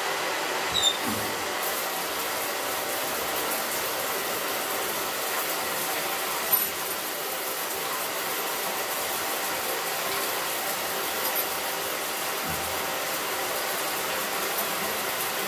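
Water running steadily from a hotel bathtub-shower tap turned on full, an even rushing hiss. Two brief knocks, about a second in and again after about six and a half seconds.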